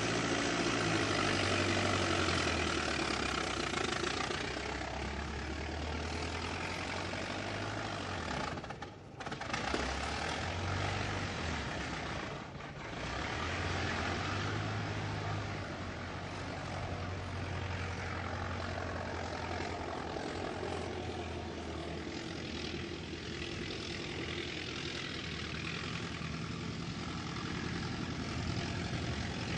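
Old car engine running steadily, its pitch shifting up and down a little, with two brief drops in level about nine and twelve seconds in.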